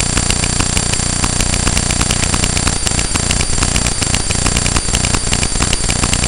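Electrical buzz from a fault inside the hat-mounted camera: a loud, steady buzz made of fast, even ticking with a constant high whine over it.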